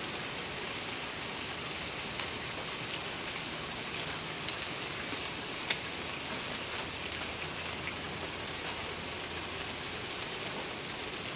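Black beans and onion sizzling on a Blackstone flat-top griddle: a steady crackling hiss with scattered small pops.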